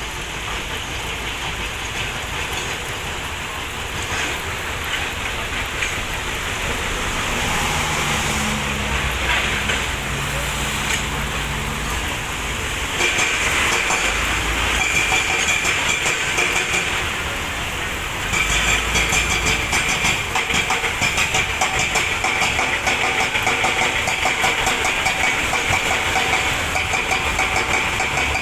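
Excavator running and working to break up large rocks: continuous engine and machinery noise. A steady high whine joins about halfway, and the sound grows louder and choppier about two-thirds in.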